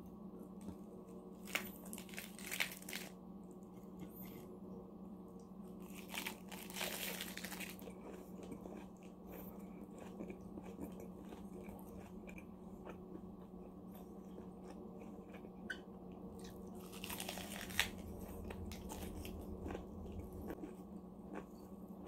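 Close-miked eating of a lettuce wrap with minced pork and fried chicken: crisp crunching in three bursts, about two, six and seventeen seconds in, with quieter chewing between, over a steady low hum.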